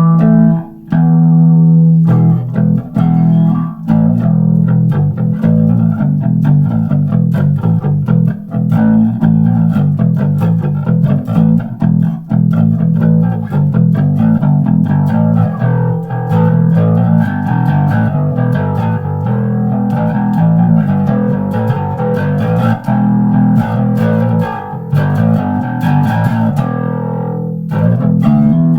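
Electric bass guitar played through a flanger with overdrive, a continuous riff with a washy, jet-like sweep that rises and falls every few seconds.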